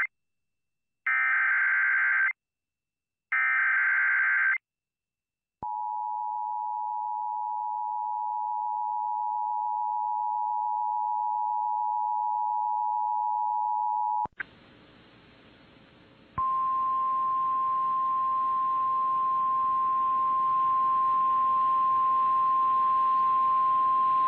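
Emergency Alert System alert tones: the last two short bursts of SAME header data warble, then the EAS two-tone attention signal held for about eight and a half seconds. After a moment of hiss, a single steady warning tone sounds over a hissy radio feed for about eight seconds: the 1050 Hz alert tone of NOAA Weather Radio, relayed ahead of a tornado warning.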